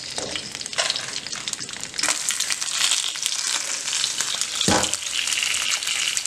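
Hot oil sizzling and crackling in frying pans, first under dried chiles and then under halved tomatoes, the sizzle stepping louder about two seconds in. A single dull knock sounds about two-thirds of the way through.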